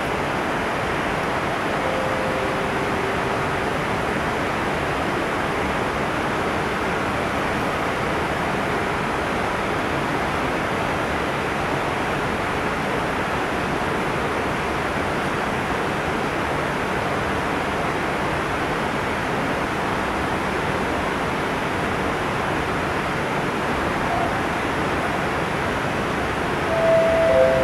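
Steady rushing background noise of an underground metro platform, even in level with no train going by. Near the end a descending electronic chime begins, the start of a platform announcement.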